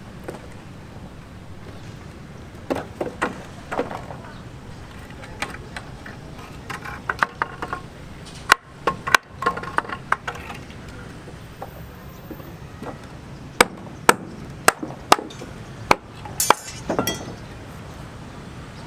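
Irregular sharp knocks and clinks of hand work on a building site, hard objects striking metal, glass or wood. They come singly and in quick clusters over a steady background hiss.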